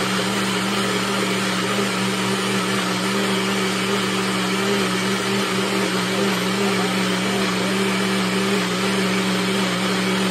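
NutriBullet personal blender running steadily, its motor holding a level hum as it blends ice and frozen fruit with ice cream and ginger ale.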